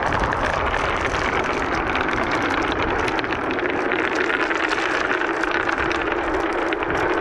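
Dozens of marbles rolling together down wooden marble-run tracks: a steady, dense rolling rumble full of quick clicks as they knock against each other and the track.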